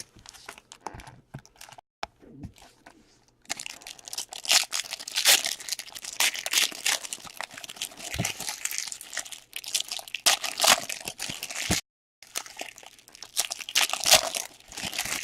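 Hockey card pack wrappers being handled and torn open, crinkling and tearing. It is sparse and faint for the first few seconds, then a dense run of crinkling with a brief break near the end.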